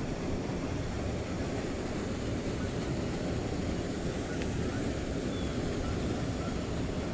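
Steady low-pitched background noise with no clear source, like wind on a microphone, with a faint single click about four and a half seconds in.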